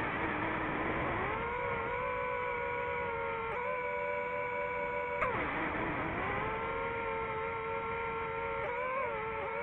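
DJI FPV drone's motors and propellers whining in flight, heard from on board. The pitch shifts with the throttle: a small step up about halfway in, then a sudden drop about five seconds in that climbs back over a second or two.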